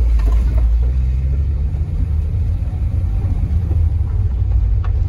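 Volkswagen Vanagon driving on a rough dirt forest road, heard from inside the cab: a steady low engine and road rumble, with a low engine hum coming in about a second in.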